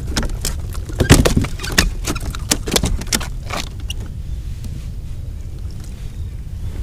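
Quick run of clicks and knocks from handling in a plastic fishing kayak while a hooked smallmouth bass is landed, the loudest knock about a second in. It stops after about four seconds, leaving a steady low wind rumble on the microphone.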